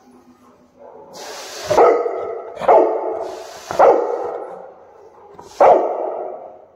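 Cane Corso barking four times, deep single barks about a second apart, the last one after a longer pause.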